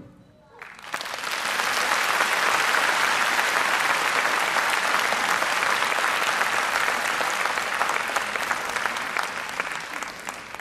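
Audience applauding, the clapping breaking out about a second in right after the song ends and easing off near the end.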